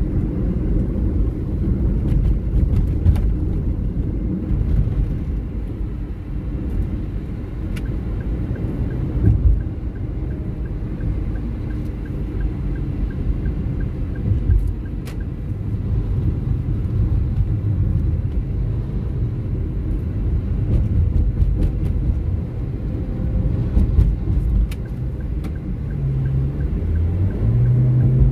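Car interior noise while driving on an asphalt highway: a steady low rumble of tyres and engine. Near the end a deeper engine hum comes up as the car draws close alongside a cargo truck.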